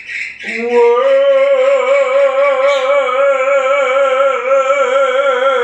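A man singing unaccompanied, holding one long note for about five seconds with a steady vibrato.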